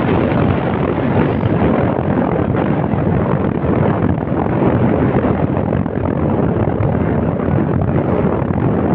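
Steady rushing noise on the open deck of a moving passenger ferry: wind across the microphone mixed with the ship's running noise.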